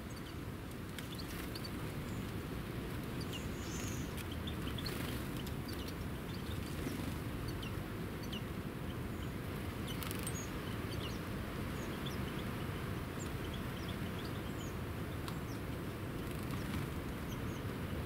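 Small songbirds giving short, high chirps and call notes, scattered irregularly throughout, over a steady low background rumble.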